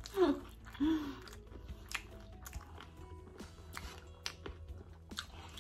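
Close-up chewing of a mouthful of pancit canton noodles and rice: wet mouth clicks and smacks scattered through, with two short 'mm' hums in the first second.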